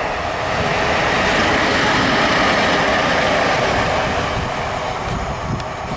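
ET22 six-axle electric locomotive passing light engine. Its running noise swells to a peak about two seconds in, then fades, with a couple of sharp clicks from the wheels near the end.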